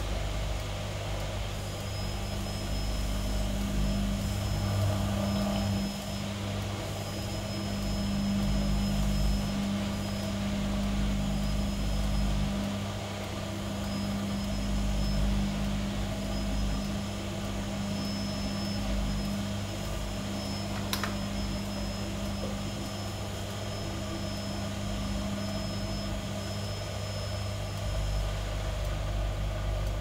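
Gorenje WA65205 front-loading washing machine in its final spin with a king-size duvet, on an 800 rpm programme: a steady motor and drum hum with a faint high whine that comes and goes. A single sharp click about two-thirds of the way through, and one of the low hum tones drops away near the end.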